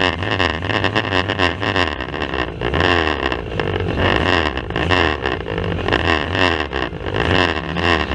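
Banger racing cars' engines running hard during a race, mixed with constant rapid knocking and rattling; the recording is harsh and poor in quality.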